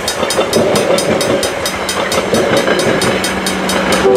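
Bilevel passenger coaches rolling past a grade crossing, their wheels clacking over the rail joints, while the crossing bell rings at about four to five strikes a second. A train horn chord starts right at the end.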